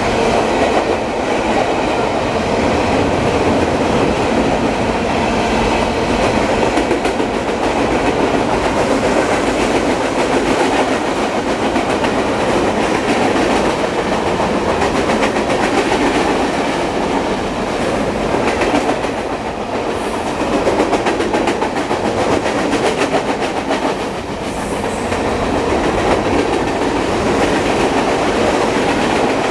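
Freight cars of a fast manifest train rolling past, a steady loud rumble of wheels on rail with constant clicking and clatter, dipping briefly twice in the second half.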